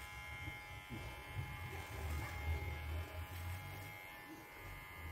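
Electric hair clippers running with a steady buzz while cutting a man's hair.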